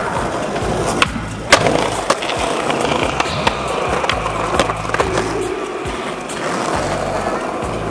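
Skateboard wheels rolling on pavement, with a handful of sharp clacks as the board pops, hits the ledge and lands. A music track with a steady bass line plays underneath.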